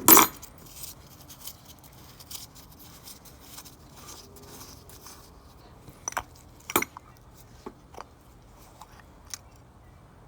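A sharp clack at the start, then scattered light clicks and scrapes of hand tools and small parts as a lawn mower carburetor is taken apart by hand.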